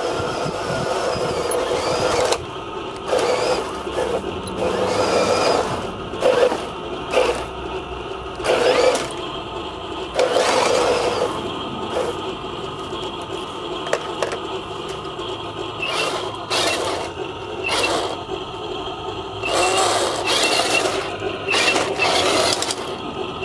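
Radio-controlled model tanks with small electric motors and plastic gearboxes driving in short stop-start bursts, the motors and gears whining and the tracks scraping over gravel in each burst. A steady hum runs underneath.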